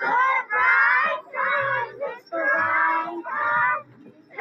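Children's voices singing a song in short phrases, with a brief pause near the end.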